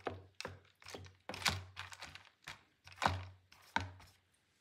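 About a dozen irregular light clicks and knocks as dried black beans are pushed around a plastic tub with a wooden spoon.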